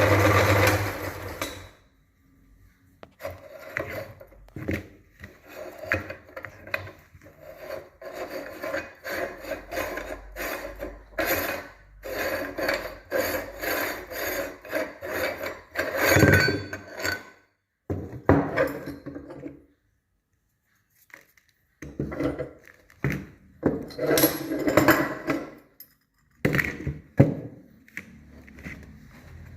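A motor hum cuts off about a second and a half in, then a meat grinder works on crunchy oat chocolate bars with irregular scraping and rasping, broken by a few short pauses.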